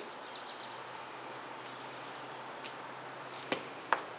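Power drill's cord being handled and unwound, with two sharp clicks near the end, over a quiet steady hiss. A few faint bird chirps are heard about half a second in.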